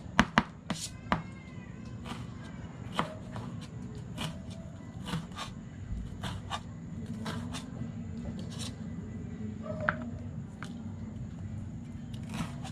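Knife cutting on a cutting board, slicing bell pepper and red chili: a quick cluster of sharp strikes in the first second or so, then single chops every second or two over a steady low hum.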